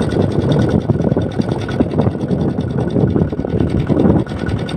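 Kubota M6040SU tractor's diesel engine running hard, steady and unbroken, while the tractor and its loaded trailer are stuck in paddy-field mud.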